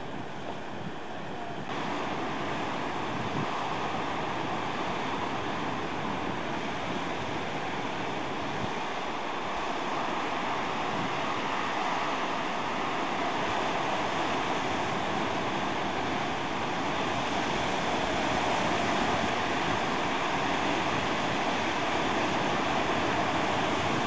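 Pacific surf breaking and washing over a rocky shore, a steady roar of noise that steps up a little about two seconds in.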